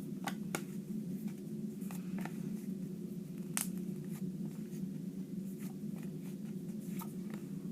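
Quiet room tone: a steady low hum with a few faint, short clicks.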